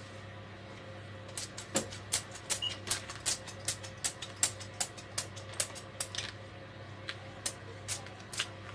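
Chickpeas on a baking tray being mixed, clicking and clattering against each other and the tray: sharp, irregular clicks, several a second, starting about a second and a half in and thinning out near the end.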